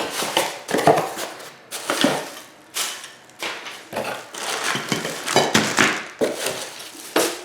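Office chair parts and packaging being handled and shifted: a string of irregular rustles, scrapes and light knocks.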